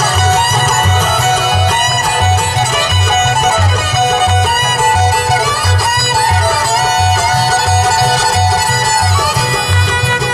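A bluegrass string band playing live with the fiddle taking the lead in long bowed notes. Upright bass keeps a steady beat, with mandolin, banjo and guitar behind it. No singing.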